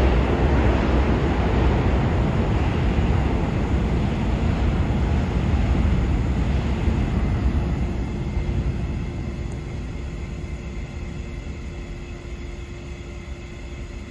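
New York City subway train running through the station: a loud, even rumble for about the first half that then fades steadily as the train pulls away, with a steady hum showing through as it dies down.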